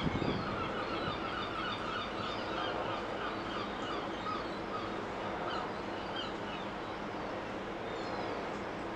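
A flock of birds calling, many short calls in quick succession over a steady low hum; the calls thin out and stop about six seconds in.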